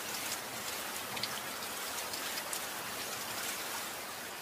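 Steady rain falling: an even hiss of rain with scattered, sharper individual drops, easing down in level near the end.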